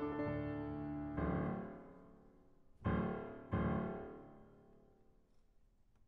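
Background piano music: a held chord, then separate chords struck about a second in, near three seconds and again half a second later, each ringing out and fading almost to silence near the end.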